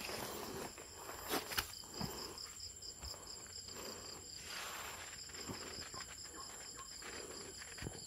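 Forest insects calling: a steady high whine with a rapid pulsing trill just below it, which breaks off briefly midway and resumes. A few footsteps fall on the trail.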